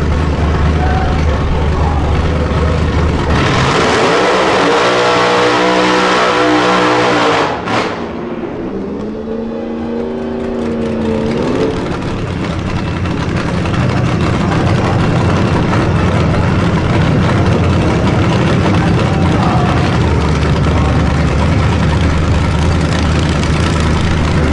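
Ford drag-race pickup doing a burnout. From about three seconds in, the engine revs hard with the tyres spinning, then cuts off suddenly near eight seconds. The engine revs up again briefly, then settles to a steady, loud idle rumble.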